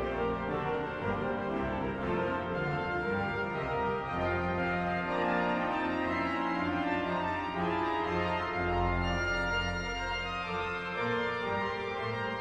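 Background music: an organ-style silent-film accompaniment of sustained chords and a moving melody at a steady level.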